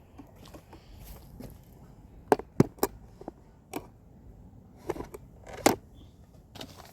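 Handling noise: several sharp clicks and knocks, a group of them a little over two seconds in and another around five to six seconds, the last the loudest.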